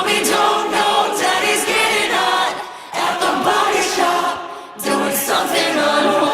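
Soundtrack music: layered voices singing a cappella in phrases, with two short breaks.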